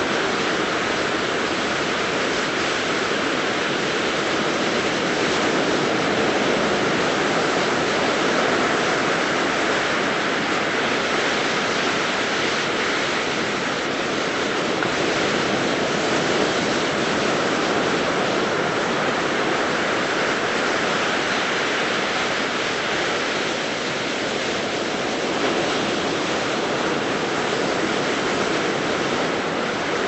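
Ocean surf breaking and washing on a beach: a steady rush of noise that swells and eases slightly.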